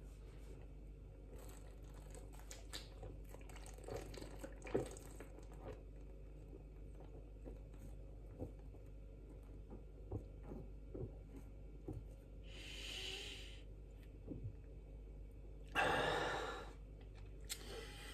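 Quiet gulping and swallowing as a man drinks beer down from a glass long-neck bottle, with small wet clicks throughout. A breathy hiss comes about thirteen seconds in, and a louder breath out near the end as the bottle comes down.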